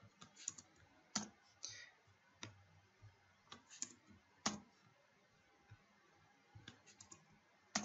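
About a dozen faint, irregular clicks of computer keys, typed and pasted in short bursts over a quiet room.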